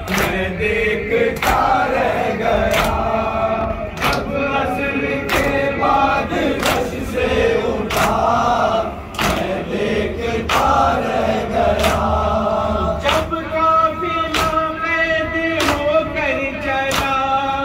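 A noha (Urdu mourning lament) sung by a male lead reciter over a microphone with a group of men chanting along, punctuated by sharp hand-on-chest slaps of matam at a regular beat, about one a second.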